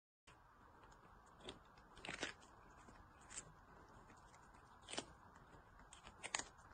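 Kitten biting and chewing a piece of cucumber: a few faint, crisp crunches, single or in quick pairs, spread over several seconds of near silence.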